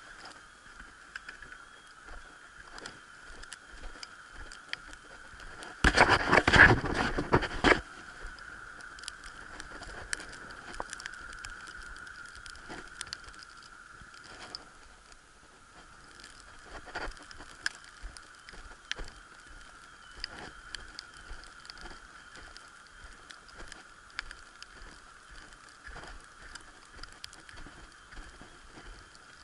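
Wind on an action camera's microphone, a steady hiss with scattered small ticks and crackles, and one loud rush of noise about six seconds in that lasts a couple of seconds.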